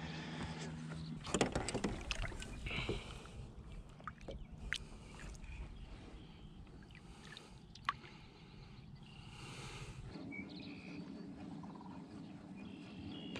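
Light water splashing and a few knocks on a fishing boat as a landed largemouth bass is let back into the water. A faint steady low hum sits underneath at the start and again near the end.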